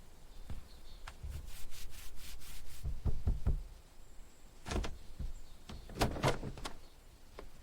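Hands handling parts of an old car: a stretch of rubbing and scraping, then a handful of sharp knocks and clicks.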